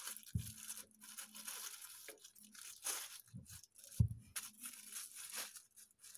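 Thin plastic bag being crumpled and torn by hand, in irregular rustles. Two dull knocks stand out, one just after the start and a louder one about four seconds in.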